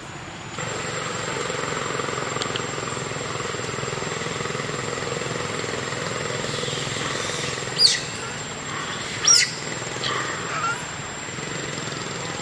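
Two sharp, high animal calls, each sweeping quickly downward, a little over a second apart, with two fainter chirps just after. They sit over a steady outdoor drone with a thin, high, steady whine.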